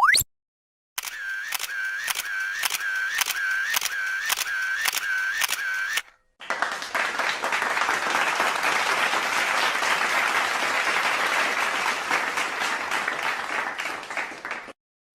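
A series of stock sound effects: a quick rising swoosh, then a camera shutter clicking about twice a second for some five seconds, then applause for about eight seconds, ending abruptly.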